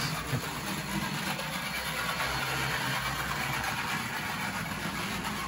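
Life-Like HO scale 2-6-0 steam locomotive, made by PlayArt, running on track with a steady mechanical noise from its motor and gear train, a lot of noise. The mechanism is loose and sloppily made, with a lot of play in the wheels and a brass replacement middle-axle gear, and the owner has not been able to tune it into running smoothly.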